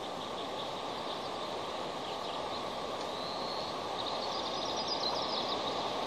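Steady rushing outdoor noise, with faint, high chirping bird calls between about two and five seconds in.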